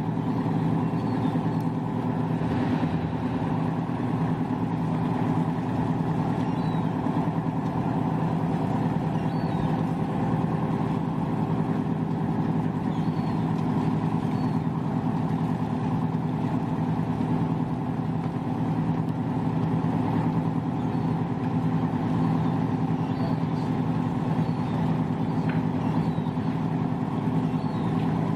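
A moored motor boat's engine idling steadily, a constant even drone.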